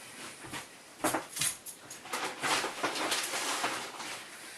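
A rag rubbing and wiping grease off the disassembled airsoft rifle's cylinder parts. A few small knocks of parts being handled come about a second in, then a couple of seconds of scratchy rubbing.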